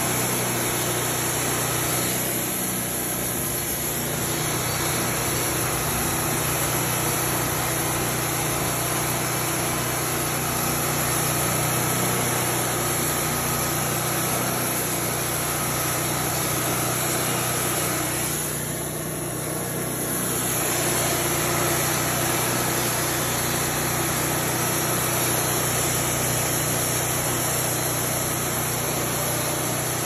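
Wood-Mizer portable band sawmill running steadily, its engine driving the band blade through a log.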